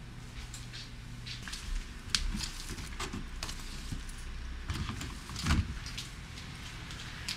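Handling noises: scattered clicks, knocks and rustles as laundry and a detergent bottle are gathered up, with two louder thumps, about two seconds in and again about five and a half seconds in.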